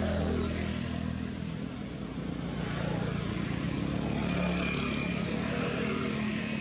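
A motor vehicle's engine running, its low hum shifting in pitch.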